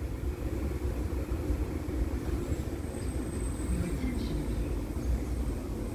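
Tyne and Wear Metrocar arriving at the platform: a steady low rumble with a faint high whine rising in about two and a half seconds in and fading near four seconds.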